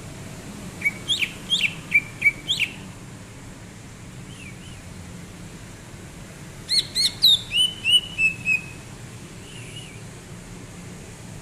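Cucak ijo (green leafbird) singing: two short phrases of clear, quick whistled chirps, the first about a second in, the second near the middle and ending in a few lower slurred notes.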